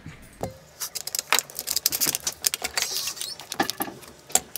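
Machine screws, washers and plywood plates being handled on a wooden workbench: a quick irregular run of small clicks and clinks.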